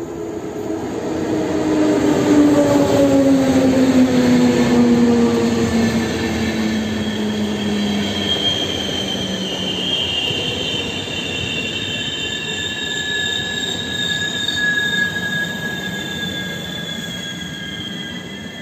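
An electric locomotive and its passenger coaches pass at close range: a low whine falls steadily in pitch as the locomotive goes by. Then the coaches roll past with a rumble and steady high-pitched wheel squeal.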